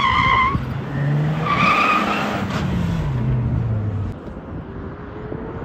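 Tyres squealing as a Volkswagen Golf hatchback slides hard through tight slalom turns on asphalt: a short squeal at the start and a longer one about two seconds in. Under it the engine revs up, then falls away and fades after about four seconds.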